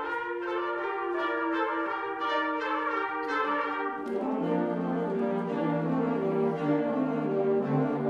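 Concert wind band playing, brass to the fore. Quick repeated notes sound in the upper parts at first; about halfway in, the low brass come in with held notes underneath.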